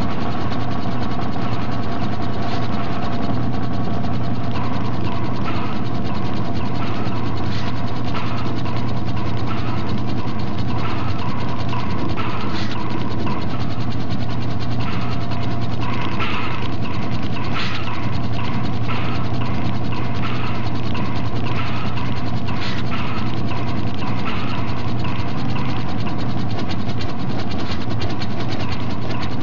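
Loud continuous mechanical noise with a ratcheting, gear-like texture over a steady low hum, with a small tick about once a second.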